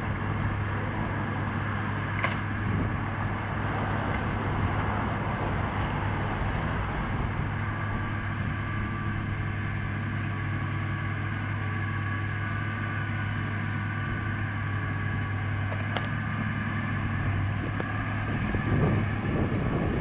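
Massey Ferguson 6480 tractor running steadily under load, with a low even engine hum, as it pulls a McHale baler picking up and baling hay. A couple of faint clicks from the machinery, and the sound gets louder near the end as the machine comes close.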